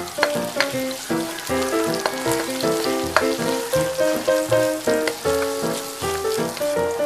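Diced onion and garlic sizzling and crackling in hot oil in a frying pan as they are stirred. Background music with a quick stepping melody plays over it.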